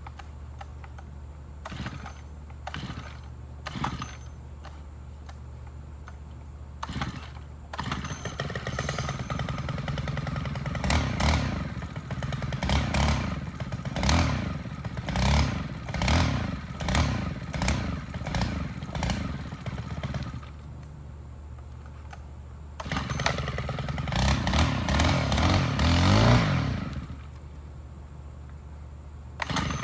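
Petrol brush cutter engine pull-started: a few short rattles, then it catches about eight seconds in and is revved up and down again and again. It shuts off, restarts and is revved hard once more, stops, and catches again at the very end.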